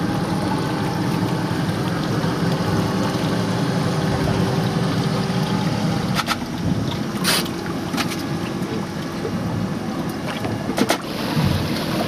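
Sounds on board a small boat at sea: a steady low rumble with a faint hum, wind and water. A few sharp clicks come in the second half, with a brief hiss about seven seconds in.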